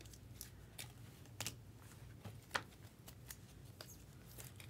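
Faint, irregular light clicks and taps of trading cards being handled and stacked, about eight in all, over a low steady hum.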